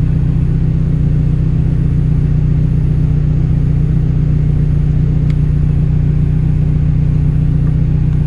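Rally car engine running at steady revs, a constant low drone with no change in pitch, and one faint click about five seconds in.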